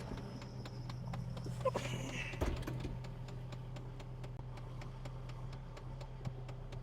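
Excavator's diesel engine running at a steady idle, with a light regular ticking about four times a second over the hum.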